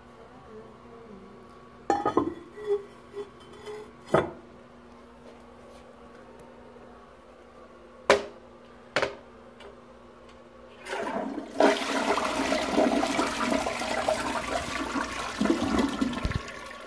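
A few sharp knocks in the first nine seconds. Then, about eleven seconds in, a toilet flushes: a loud rush of water lasting about five seconds, fading just before the end.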